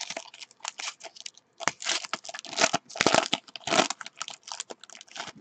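A trading card pack's plastic wrapper being crinkled and torn open by hand: a run of irregular crackling rustles, loudest through the middle.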